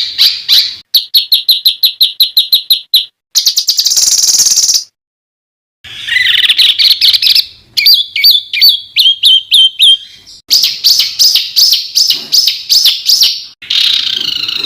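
Spliced compilation of songbird songs used as a masteran tutor recording for cage birds. It opens with a fast series of sharp, high repeated notes and then a dense buzzy trill. After about a second of silence roughly five seconds in, further chattering and trilling phrases follow, each clip starting and stopping abruptly.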